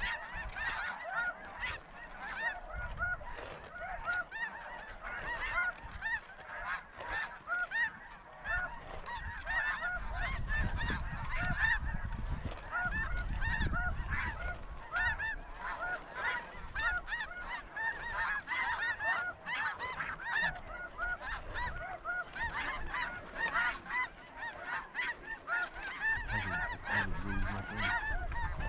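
A large flock of snow geese calling overhead: a dense, unbroken chorus of many overlapping short, high honks. A low rumble runs under it for a few seconds about ten seconds in.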